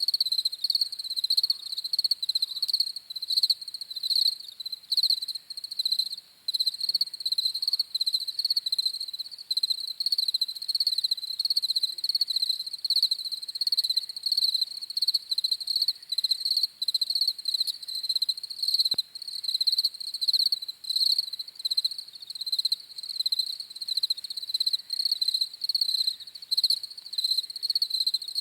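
Crickets chirping continuously, a dense high-pitched pulsing trill that never stops.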